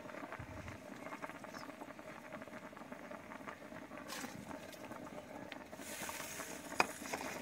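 Broth bubbling in a large steel cooking pot as rice is tipped into it from a plate: a steady, fine patter and crackle with an occasional sharper click.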